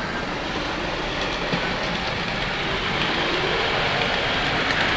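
A model train running on the layout's track: a steady rattle and rumble of wheels on rail that grows gradually louder as it approaches.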